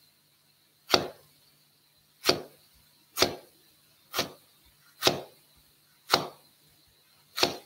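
Chef's knife cutting down through ginger onto a bamboo cutting board: seven separate knocks, about one a second, slightly uneven in spacing.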